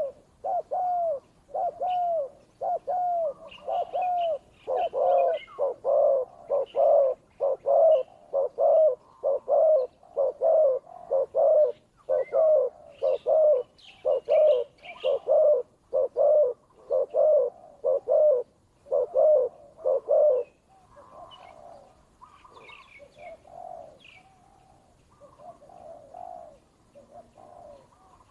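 Doves cooing in a long run of low, evenly repeated coos, about one and a half a second, as a tethered decoy dove and a wild dove call against each other in a territorial contest. The run stops about 20 seconds in, leaving fainter, scattered coos, with a few faint higher chirps from small birds.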